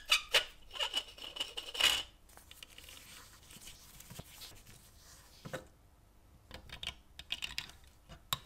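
Clicks, scrapes and light metallic taps from handling the rusty chassis of a 1920s Bing live-steam toy locomotive, with a thin, steady high squeal in the first two seconds. After that come sparser small clicks as a coil spring inside the frame is worked with pliers.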